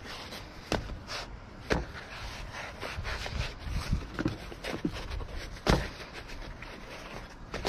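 Naan flatbreads being handled and moved from a plastic tray onto a bamboo cutting board: soft rustling of the bread with a few sharp knocks and taps, the loudest about a second in, near two seconds and near six seconds.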